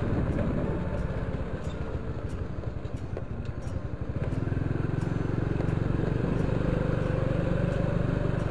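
Small motorcycle engine running steadily while riding, dipping slightly in level then louder again from about four seconds in.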